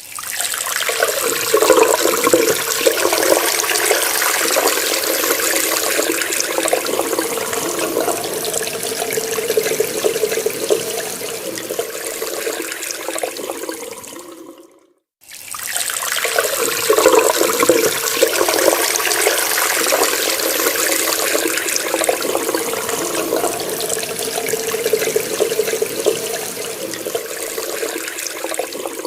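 Water running from a tap and splashing steadily. It fades out about halfway, stops for about a second, then the same stretch of running water starts again.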